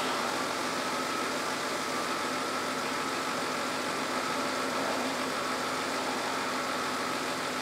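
A 2008 Chevy Equinox idling steadily with the A/C system running and the electric cooling fan on, a constant hum with a faint steady tone.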